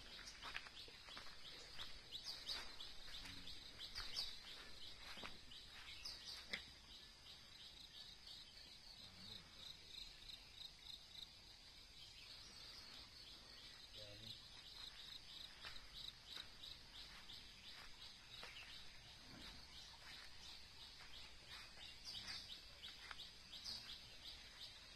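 Faint outdoor ambience of birds and insects: a steady chorus of short, high, repeated chirps, with scattered light clicks.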